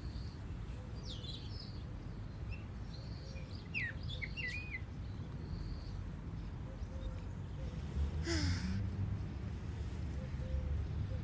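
Birds chirping: a few short, high, quickly gliding chirps and whistles during the first five seconds over a low steady rumble, then a brief rustle about eight seconds in.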